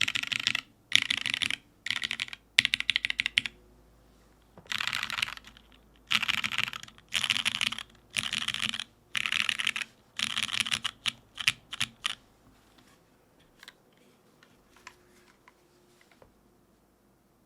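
Custom tenkeyless mechanical keyboard with lubed Cherry MX Black linear switches on an aluminium plate, X-Ring mounted, with GMK keycaps, typed on in quick bursts of rapid keystrokes. About two-thirds of the way in it thins to a few fainter, single keystrokes.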